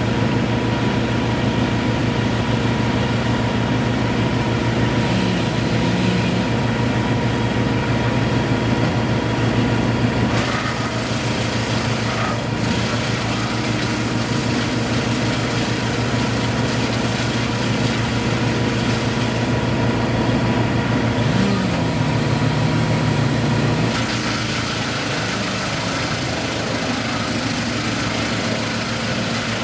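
Engine of heavy tree-removal equipment running steadily at a constant speed, its loudness dropping slightly about 24 seconds in.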